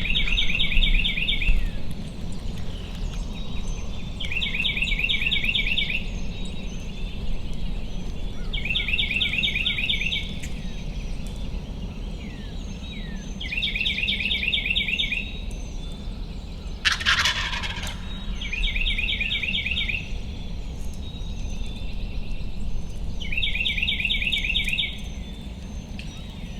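Eastern wild turkey gobbler gobbling repeatedly, six rapid rattling gobbles roughly every four and a half seconds. There is one brief burst of noise about two-thirds of the way through.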